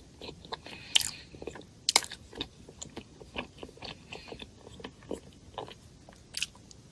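Close-miked eating: a person biting and chewing food, with sharp crunches and wet mouth clicks, the loudest bites about a second, two seconds and six and a half seconds in.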